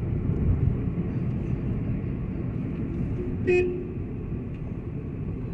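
Steady low road rumble of a moving vehicle, with one short vehicle horn toot about three and a half seconds in.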